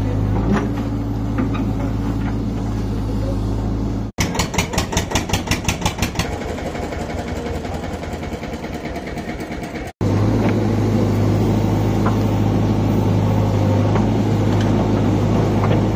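Diesel engines of a JCB backhoe loader and a Sonalika tractor running steadily, broken by two sudden cuts. After the first cut the engine beats fast and evenly, about six pulses a second for some two seconds, then settles into a steady run. After the second cut the loader's steady hum returns.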